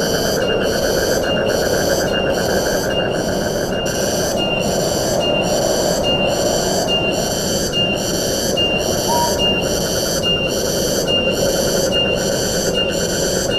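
Steady rush of wind in forest trees under a loud, high insect chorus that pulses evenly about twice a second, with a finer buzz beneath it.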